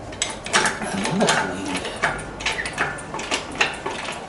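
Hydraulic engine hoist being worked by hand at its pump handle: a run of irregular metallic clicks and clanks, several a second.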